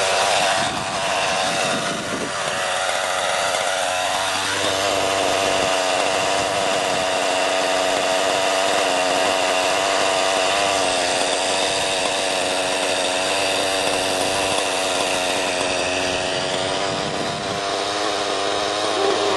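Small two-stroke glow-fuel (nitro) engine of an Align T-Rex 600 nitro RC helicopter, running steadily with a small shift in pitch about four seconds in.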